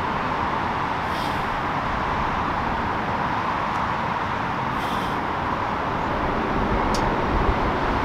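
Steady hiss of distant road traffic, with a faint click about seven seconds in.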